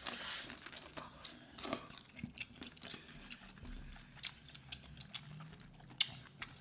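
Faint close-miked eating sounds: someone chewing boiled shrimp, with soft wet smacks and small clicks, and one sharper click about six seconds in.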